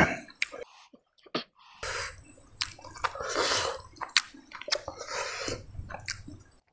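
Close-miked wet eating sounds: sucking and slurping at snail shells and chewing curry and rice, with scattered small clicks. The loudest moment is a short slurp at the very start.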